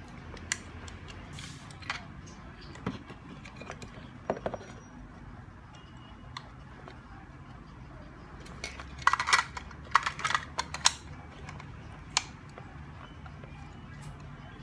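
Hands handling small hard objects: scattered light clicks and knocks, with a quick run of louder clatter and rattling about nine to eleven seconds in, over a steady low hum.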